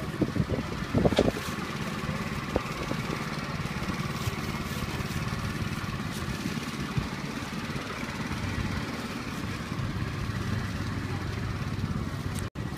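A small engine running steadily, with a couple of brief voices near the start.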